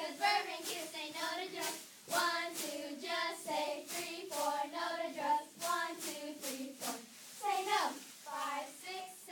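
Spirit squad of young girls chanting a cheer in unison, with sharp claps about twice a second.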